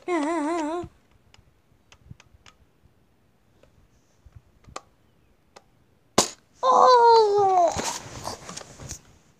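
A boy's wavering, warbling vocal noise, then a few faint clicks. About six seconds in comes a sharp snap, then a loud, drawn-out cry falling in pitch and a brief clatter: a faked cry of being shot in the belly.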